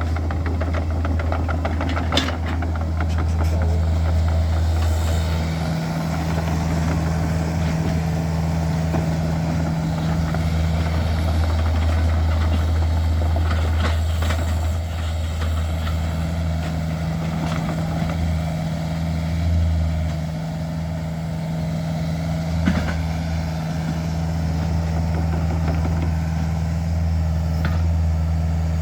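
Small Hitachi mini excavator's diesel engine running steadily, its tone shifting now and then as the machine works, with a few short metallic knocks.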